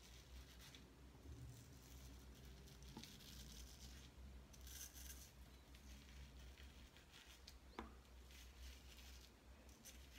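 Faint scraping strokes of a George Butler 6/8 round-point straight razor cutting through lathered whiskers, short rasps coming and going every second or two over a low room hum.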